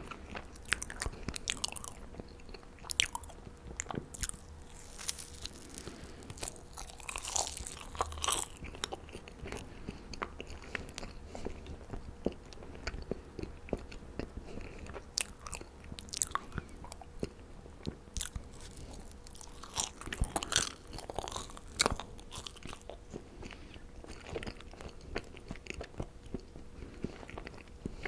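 A person chewing and biting marshmallows close to the microphone: irregular sticky mouth clicks and soft chewing sounds.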